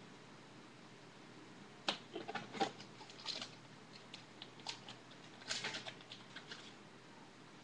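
Football trading cards being handled and slid against each other, a run of light scratchy rustles and clicks that starts about two seconds in and stops shortly before the end.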